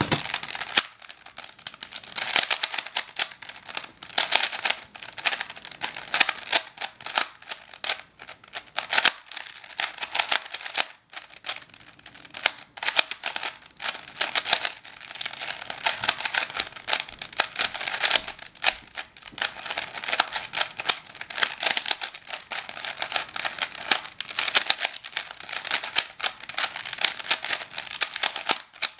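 Rubik's brand 3x3 cube being turned rapidly through a speedsolve: a dense run of plastic clicks and rattles from the layers, with short pauses, from a cube freshly worked in and lubed.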